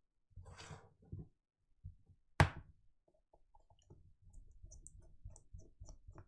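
Small objects being handled on a repair bench: a brief rustle, one sharp knock about two and a half seconds in, then a run of small quiet clicks and taps.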